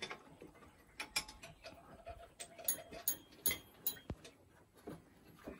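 Light, irregular metallic clicks and taps of hand tools, a screwdriver among them, working on an engine's exposed rocker arms and valve gear, with a soft knock a little after halfway.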